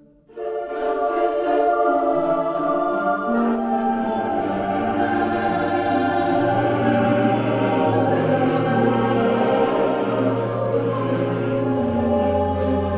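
Background choral music: a choir singing sustained, slowly changing chords. It starts suddenly about a third of a second in, just after the previous music fades out.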